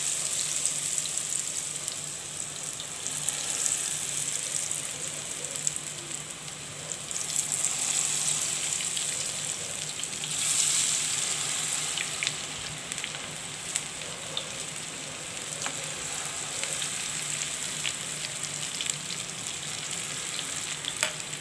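Potato lachha pakoras in gram-flour batter deep-frying in hot oil: a steady, vigorous sizzle with scattered small crackles, swelling louder for a moment about halfway through.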